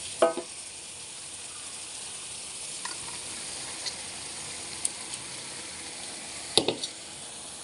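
Food sizzling steadily in hot oil in a pan while it is stirred. A metal utensil knocks against the pan with a brief ring twice, just after the start and again near the end.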